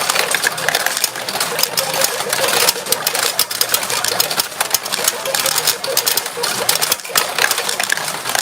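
Retro pachinko machine in play: a continuous, rapid clatter of steel balls being fired and rattling down through the pins.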